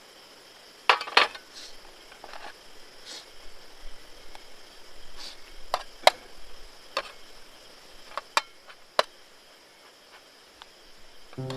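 Steady high insect chirring, broken by a dozen or so scattered sharp clicks and light knocks, the loudest a pair about a second in and another about six seconds in.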